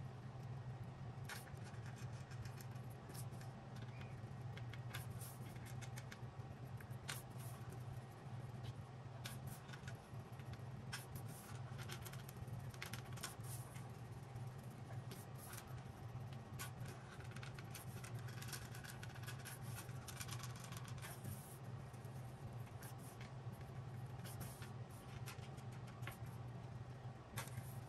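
Irregular light clicks and scratching over a steady low hum.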